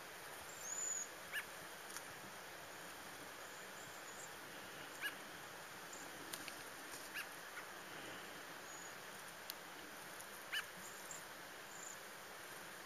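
Cedar waxwings giving thin, very high-pitched whistled calls several times, mixed with a few short, sharp lower-pitched chirps, over a faint steady hiss.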